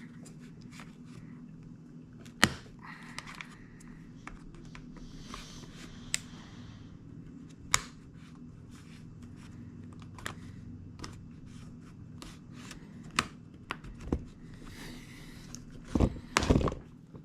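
A plastic pry tool scraping and clicking around the edge of a tablet's screen to release it, with scattered sharp clicks and short scrapes against a steady low hum. A cluster of heavier thumps comes near the end.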